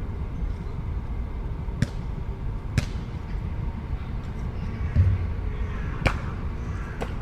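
City street ambience: a steady low rumble of traffic, broken by a few sharp clacks and a low thump about five seconds in.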